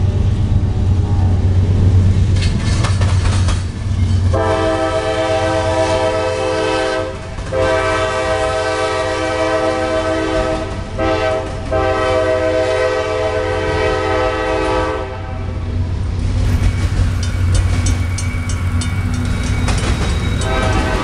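Model diesel passenger locomotive's onboard sound-system horn sounding three long blasts back to back, starting about four seconds in and lasting about eleven seconds, over a steady low rumble of the train running on the track. Light clicking of wheels over the rails follows, and the horn starts again right at the end.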